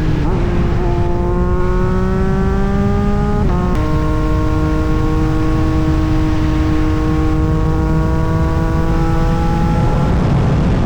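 Yamaha MT-09 SP's inline-three engine through an Austin Racing exhaust, its pitch climbing slowly under load, then dropping suddenly at a gear change about four seconds in. It holds a second, steadier pull that fades out near the end, over a constant rushing noise.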